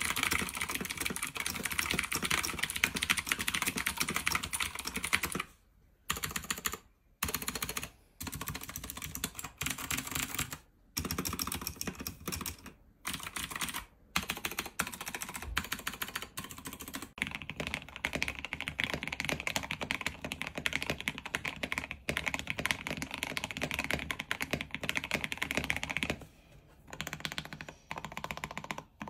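Fast typing on a Keychron K2 mechanical keyboard, a dense run of key clicks broken by a few brief pauses. First the board is heard stock; later it is heard modded with Gateron Milky Yellow Pro switches, XDA keycaps, gasket mount, foam and tape mod.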